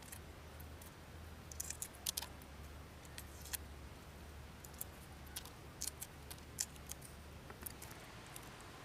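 Shell of hard-boiled eggs cracking and being picked off by fingers: a scattering of small, sharp crackles and ticks, several close together about two seconds in and more spread out after.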